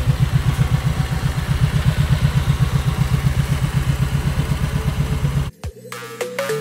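Kawasaki Vulcan 1700 Vaquero's 1700cc V-twin engine idling with a steady, even pulsing rumble. It cuts off suddenly about five and a half seconds in, and electronic music starts.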